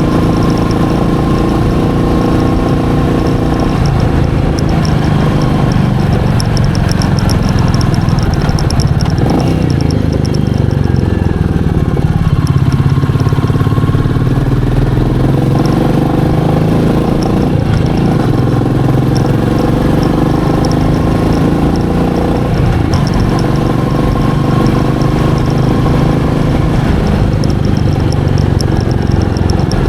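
Royal Enfield Meteor 350's single-cylinder engine running as the motorcycle is ridden, its note falling and rising several times with the throttle.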